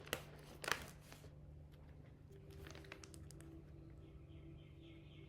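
Packaging being handled during an unboxing: two sharp crinkles in the first second, then quieter rustling, over a steady low hum.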